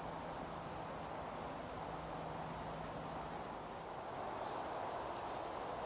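Faint, steady outdoor background noise with no clear single source. A brief faint high chirp comes about two seconds in.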